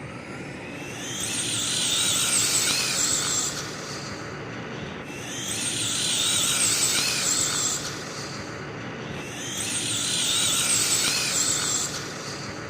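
Traxxas Sledge RC monster truck's electric motor and drivetrain whining high in three bursts of acceleration, each about two to three seconds long, with the pitch wavering.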